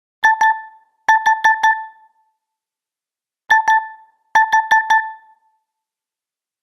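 A Nokia 7.1 phone tone: bright electronic beeps, all on one pitch, in a pattern of two quick beeps and then four. The pattern repeats about every three seconds, as a looping ringtone or alarm does.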